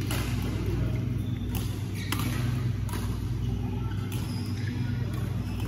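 Steady low hum filling a large badminton hall, with sharp clicks scattered every second or so from shuttlecocks being struck by rackets on the courts.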